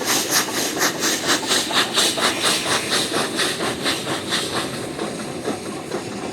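Steam locomotive working, its exhaust chuffing about four to five times a second with a hiss of steam. The chuffs fade after about four seconds, leaving a steadier rumble and hiss.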